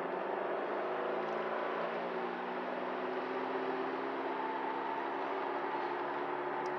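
Whirring from the front end of a 2005 Mercedes-Benz E500 wagon on the move: several steady tones over road noise, with a higher tone joining about four seconds in. It follows road speed, not engine speed, and the owner is unsure whether the tyres, wheel bearings or differential cause it.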